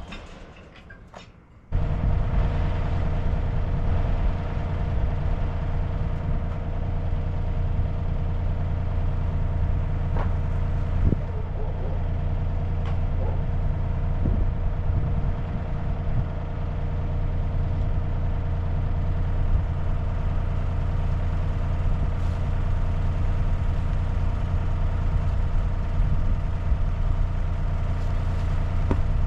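A few light clicks, then about two seconds in an engine running steadily at an even speed, with a strong low hum.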